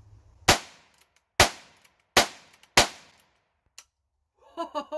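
Four shots from a Heritage Rough Rider single-action revolver carbine in .22 LR, fired in quick succession less than a second apart, each trailing off briefly.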